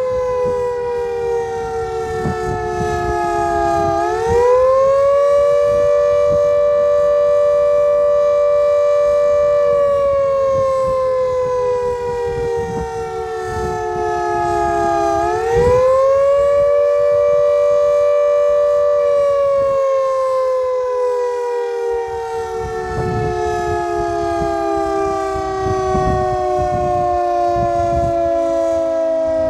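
Civil defence air-raid siren sounding the attack warning, a wailing signal, with two close notes sounding together. About four seconds in it rises quickly, holds high for several seconds, then slowly sinks; it does the same again about halfway through and is falling slowly near the end.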